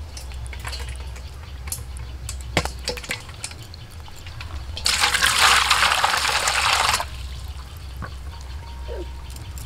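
Live magur catfish flapping against a stainless-steel bowl, making a few sharp taps. Then water is poured into the bowl for about two seconds, the loudest sound, and the pouring stops suddenly.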